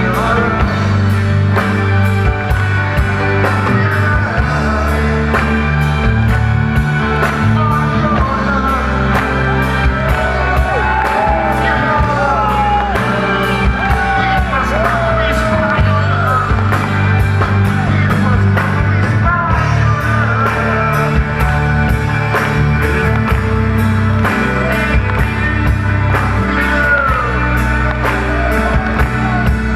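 Live rock band playing an instrumental passage, with drums keeping a steady beat. In the middle a lead melody line bends and slides in pitch over the band.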